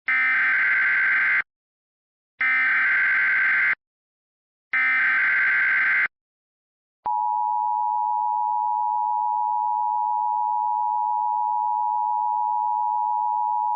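Emergency Alert System tones. Three screeching bursts of the digital SAME header, each about a second and a half long with short gaps, are followed about seven seconds in by the steady two-tone EAS attention signal.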